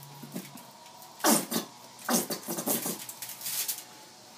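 Squeeze bottle of barbecue sauce being squirted in four short bursts, about a second apart.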